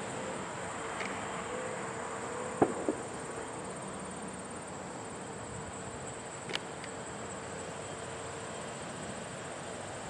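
Insects trilling steadily at a high pitch, with a faint steady low tone that fades out about halfway through and a couple of sharp clicks.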